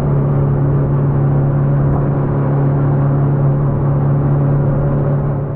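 Boat engine running steadily, a constant low hum that holds the same pitch throughout.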